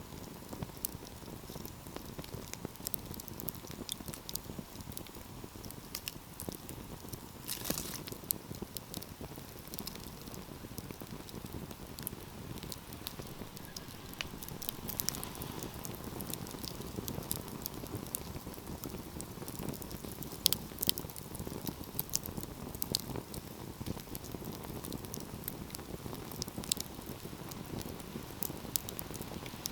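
Wood fire burning: a steady low rush of flames with scattered crackles and pops, a louder pop about eight seconds in and a few sharper ones around twenty seconds in.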